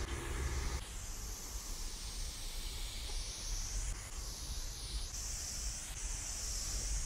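Aerosol spray-paint can hissing in stretches of varying length while spraying graffiti outlines, over a low rumble.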